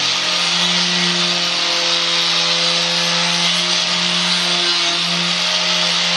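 Corded angle grinder running steadily as it grinds down the edge of a car's front bumper: a constant motor tone under a loud scraping hiss.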